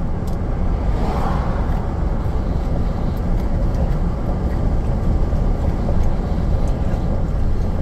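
Steady road noise of a moving vehicle heard from inside its cab: engine and tyres running on, mostly a low rumble.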